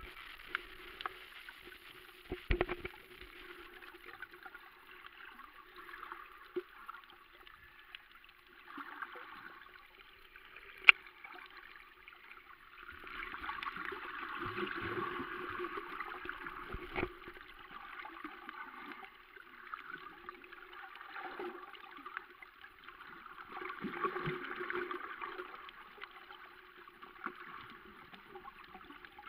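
Underwater sound picked up by a camera held below the surface: a muffled hiss of moving water with a faint low hum, scattered clicks and knocks, the sharpest about eleven seconds in, and two longer swells of louder water noise in the second half.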